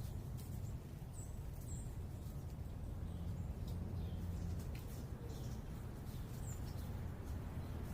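Steady low hum of urban background noise with a few short, high bird chirps scattered through, about three of them.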